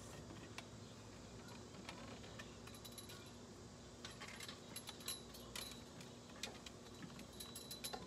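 Faint metallic clinks and taps from the hardware of a bird-feeder pole as it is fastened to a wooden deck railing. The clicks come scattered, busiest in the middle and again near the end.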